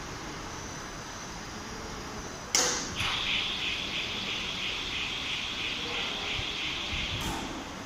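A sudden loud clunk about two and a half seconds in, then the overhead crane's electric warning buzzer sounding in rapid even pulses for about four seconds before cutting off, while the crane travels with its load.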